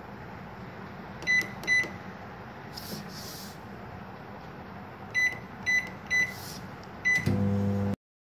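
Control panel of an IFB 25SC4 convection microwave oven beeping as its buttons are pressed to set 5 more minutes of cooking: two short beeps about a second in, then four more from about five seconds in. Near the end the oven starts running with a steady low hum.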